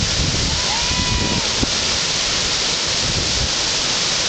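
Steady rush of river whitewater pouring over a rapid's standing wave. A faint, brief tone sounds about a second in.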